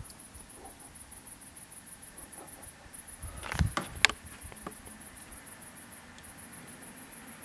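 Night insects chirping: a high, rapidly pulsing trill that keeps on throughout, with two brief gaps. A couple of short knocks come a little past halfway.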